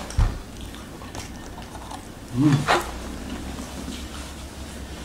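Eating sounds: chewing, with a spoon clicking against bowls. A low thump comes just after the start, and a brief pitched vocal sound with a sharp click follows about two and a half seconds in.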